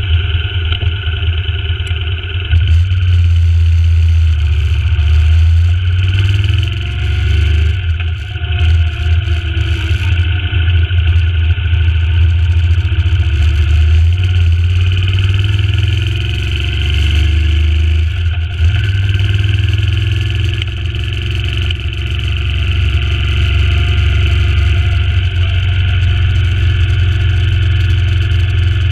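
Suzuki Intruder C800's V-twin engine running as the motorcycle rides at low speed, its note rising and falling with the throttle and easing off briefly a few times; the engine is new and still being run in.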